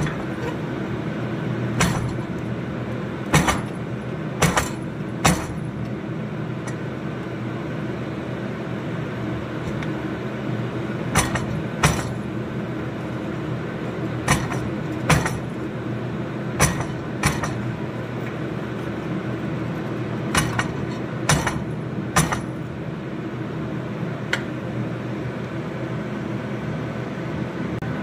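Hammer blows on hot steel over an anvil, single strikes and pairs at irregular spacing, about fifteen in all, as the bar is drawn out to stretch the bird's feet. A steady low drone runs underneath.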